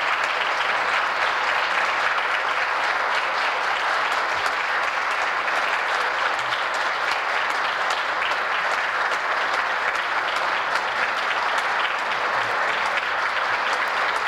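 Sustained applause from a chamber full of members of Parliament, many hands clapping at a steady level.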